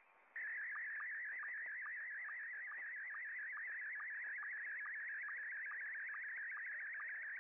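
Slow-scan television (SSTV) signal in Scottie 1 mode, received over the HamSphere virtual shortwave radio: a fast warbling tone broken by a short sync tick a little over twice a second, each tick marking the start of a new picture line. The signal is missing for the first third of a second, then comes back.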